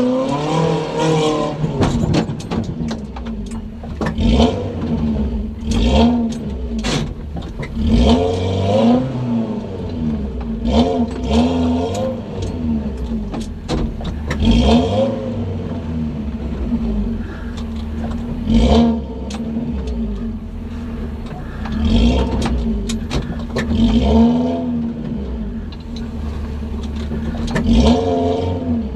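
Modified 4x4's engine revved in repeated short throttle bursts as it crawls through ditches and over dirt mounds, rising and falling every second or two. Knocks and clatter come from the body and suspension.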